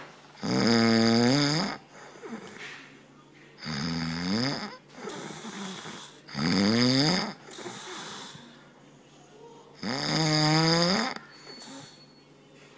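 A sleeping man snoring: four long, pitched snores about three seconds apart, each dipping and then rising in pitch. After the third comes a short hissing breath.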